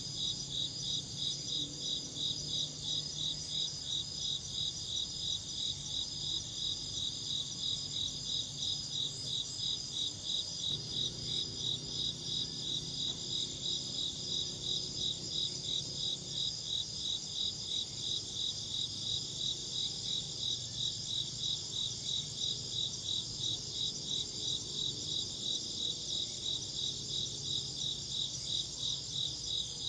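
Crickets chirping in a steady, even rhythm of high chirps, about three a second.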